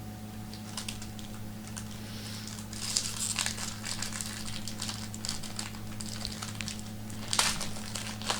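Trading card pack wrapper being torn open and crinkled by hand: irregular crackling that thickens about three seconds in and peaks with a sharp crinkle near the end, over a steady low electrical hum.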